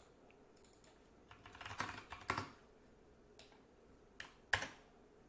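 Faint typing on a computer keyboard as a terminal command is entered: a quick run of keystrokes about a second in, then a few single key presses near the end.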